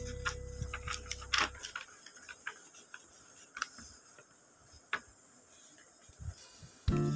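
Sheets of drawing paper being lifted and turned by hand: scattered light clicks and paper rustles in a quiet stretch. Background music fades out in the first second and a half and comes back just before the end.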